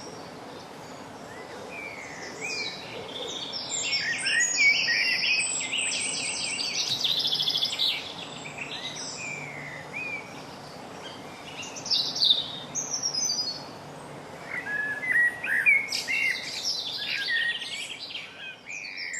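Common blackbird singing close by in varied phrases, with a chaffinch's rapid song trills in the background.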